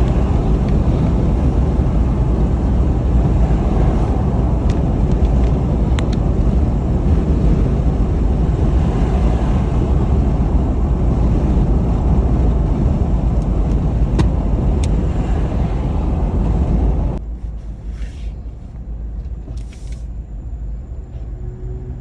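A car driving, with steady, loud road and engine noise. About 17 seconds in, the noise drops sharply to a much quieter rumble.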